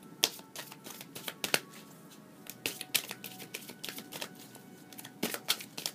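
A deck of oracle cards being shuffled by hand: irregular clicks and snaps of cards flicking against each other.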